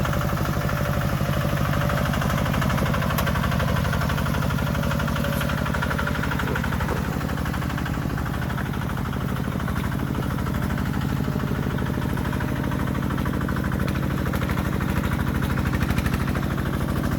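Tractor engine running steadily, with a fast, even pulsing and no change in speed.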